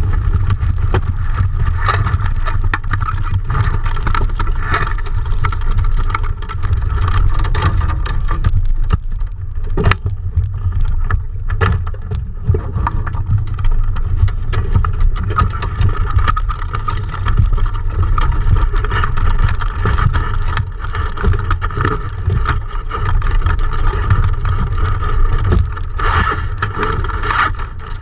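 Wind buffeting the microphone of a camera mounted at the top of a small sailboat's mast, giving a steady rumble. Irregular knocks and rattles from the boat and rigging sound over it.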